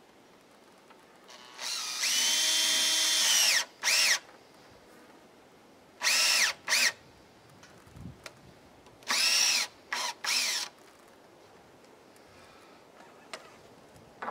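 Power drill driving a wood screw through a board into a wooden post. There is one run of about two seconds, then six short bursts of the motor whine, each rising in pitch as it spins up.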